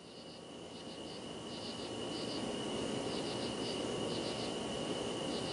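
Crickets chirping in short pulsed groups about twice a second over a steady high trill, fading in and growing louder over the first two seconds.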